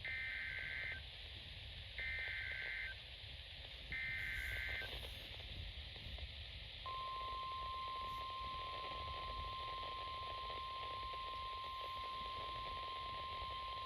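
NOAA Weather Radio Emergency Alert System activation, received over the radio with steady static hiss. Three one-second bursts of SAME header data go out about a second apart. About three seconds after the last burst, the steady 1050 Hz weather radio alert tone starts and holds, signalling a warning message to follow.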